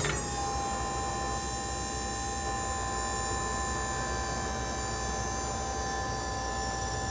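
A steady electric-motor whine that drops slightly in pitch right at the start, just after a short click, then holds even.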